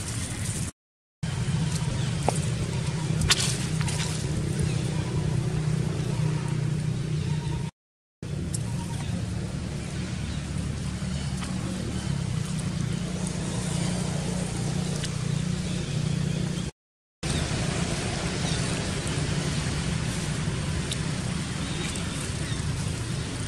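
Steady low outdoor background rumble, dropping out to silence for a moment three times.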